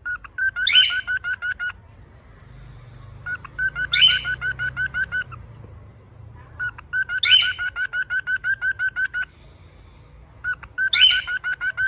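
Cockatiel singing: the same phrase comes four times, each a bright rising whistle followed by a quick run of short, even chirps at about eight a second.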